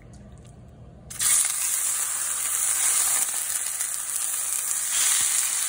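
Thin-sliced raw chicken breast laid into a hot stainless steel skillet oiled with grapeseed oil, starting to sizzle suddenly about a second in and frying steadily after that.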